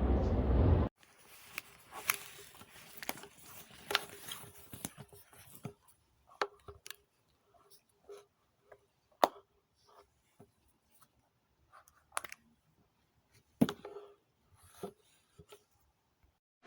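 A loud steady rushing noise that cuts off suddenly about a second in, followed by scattered light clicks and taps, as of a small hard object being handled, over a faint steady hum.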